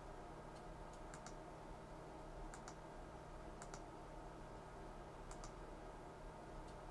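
Faint, short clicks, mostly in pairs a fraction of a second apart, scattered every second or so as the current setting on the test bench is turned down, over a faint steady hum.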